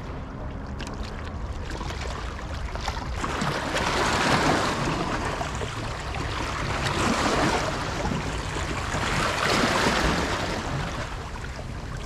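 Small sea waves washing against the rocks of a jetty, surging three times and draining back in between.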